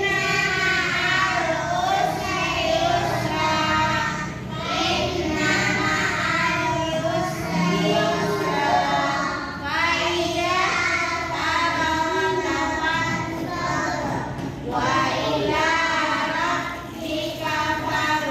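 A child singing a song, with music.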